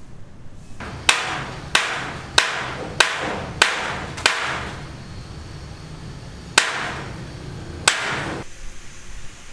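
Hammer blows: six regular strikes about two thirds of a second apart, then a pause and two more, each with a short ringing tail.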